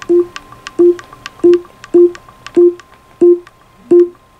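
A short, low electronic note repeated evenly about one and a half times a second, like a plain synth beat, over a faint steady higher tone with small sharp clicks between the notes.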